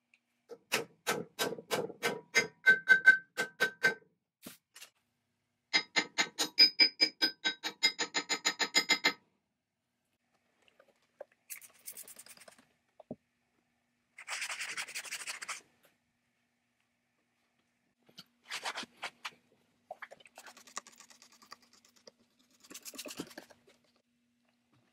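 Two fast, even runs of hammer strikes on steel, each strike ringing with a clear metallic tone, the second run about eight strikes a second. After a pause come several short scratchy rubbing noises, the longest about a second and a half.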